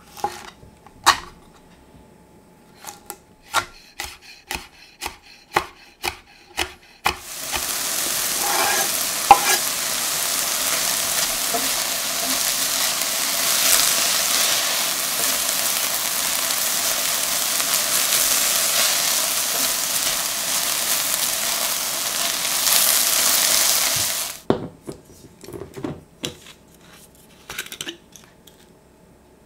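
A kitchen knife chopping red chilli on a wooden chopping board, about a dozen strokes roughly half a second apart. Then chopped spring onion and chilli sizzle steadily in a stainless steel frying pan, with a few stirring clicks. The sizzle cuts off suddenly and a few light taps follow.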